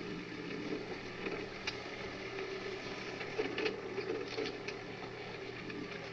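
Mini excavator running steadily, with a few sharp metallic clicks and knocks scattered through it.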